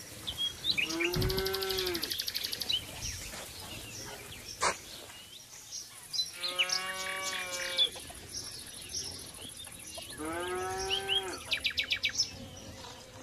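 A farm animal calling three times, each call drawn out with a falling, curved pitch, the middle one wavering. Birds chirp and trill in quick high runs between the calls.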